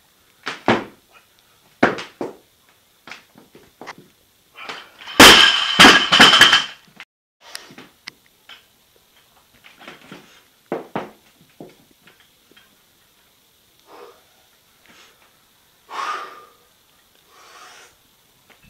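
Loaded barbell dropped onto the floor: a loud crash of weight plates about five seconds in, clattering for about a second and a half. Lighter knocks and thuds of the bar and plates come before and after.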